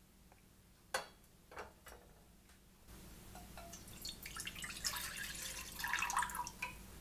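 Milk being poured into an enamel saucepan: a pouring splash that grows louder and stops shortly before the end, after two light knocks about a second in.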